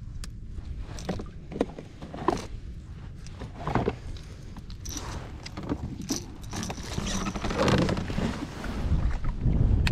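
Scattered light clicks and knocks of fishing tackle being handled aboard a kayak, over a low rumble of wind and water that grows louder near the end.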